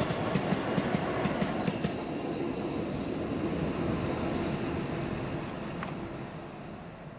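Freight train passing: wheels clatter over the rail joints for the first couple of seconds as the last wagons go by, then the rumble fades steadily as the train moves away.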